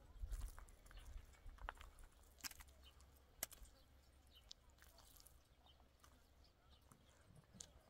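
Near silence: faint outdoor ambience with a low rumble and a few scattered small clicks.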